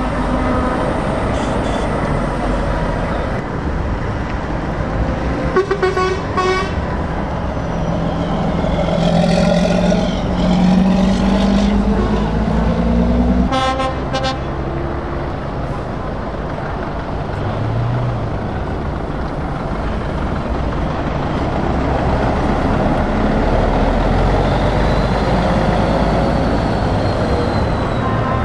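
Heavy lorry diesel engines running as tractor units drive off one after another, with an engine note rising steadily between about nine and thirteen seconds as a truck pulls away. Short truck horn blasts sound about six seconds in and again about fourteen seconds in.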